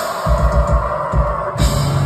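Heavy metal band playing live, loud, with rapid kick-drum hits under a steady wall of guitar.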